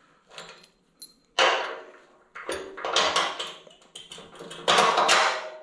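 A half-by-four-inch steel bolt is worked through the lower A-arm's pivot mount and bushings, giving a series of metal scrapes and clinks. The loudest come about a second and a half in and near the end.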